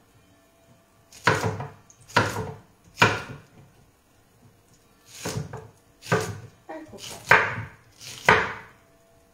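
Kitchen knife chopping fresh, crisp romanesco zucchini into dice on a wooden cutting board: about seven chops, roughly one a second, with a pause midway.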